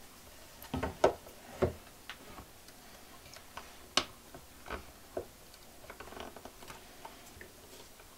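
Scattered light clicks and taps of a metal square and a small marking tool against a painted wooden drawer front, as the holes for a cabinet handle are marked out by hand. The loudest taps come about a second in and again about four seconds in.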